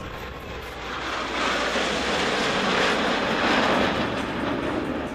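Jet noise from four Blue Angels F/A-18 Hornets flying by in diamond formation. It swells about a second in, is loudest through the middle, and eases off near the end.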